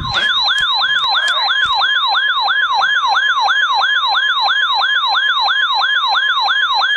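NOAA weather radio receivers sounding a flash flood warning alert. A steady high warning tone plays together with a receiver's siren alarm, which repeats a falling sweep about three times a second.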